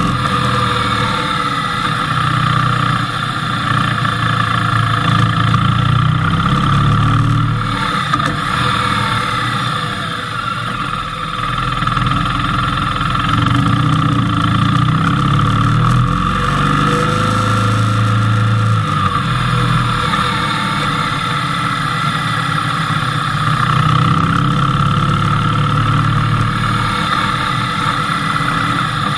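Motorcycle engine running while the bike is ridden, its pitch rising and falling several times with the throttle and gear changes, picked up by a camera mounted on the bike.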